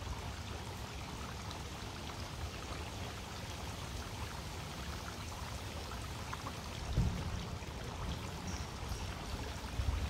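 Tiered garden water fountain running, water splashing and trickling steadily from bowl to bowl. A brief low thump about seven seconds in.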